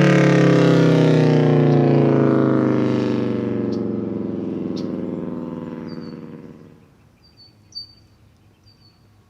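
Federal Signal Thunderbolt 1000T siren with a 4/5-port rotor winding down, its pitch falling steadily as it fades out about seven seconds in. Birds chirp after it dies away.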